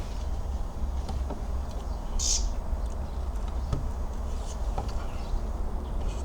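Outdoor ambience: a steady low rumble, with faint scattered chirps and one short, sharp high bird chirp about two seconds in.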